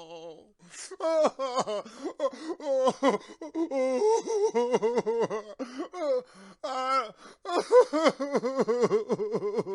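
A man crying: a sharp gasping inhale about a second in, then broken sobs in short choppy bursts that come quicker near the end.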